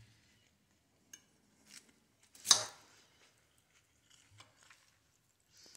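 Metal fork clinking against a glass plate while picking up salad: a few light clicks and one louder, sharp clink about two and a half seconds in.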